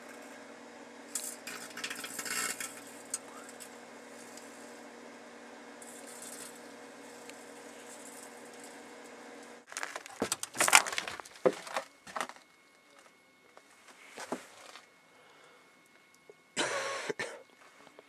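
Microwave oven running with a steady hum while speaker parts inside crackle and burn; the hum cuts off suddenly about ten seconds in. Sharp clattering of the glass turntable plate and door follows, with a short loud scrape near the end.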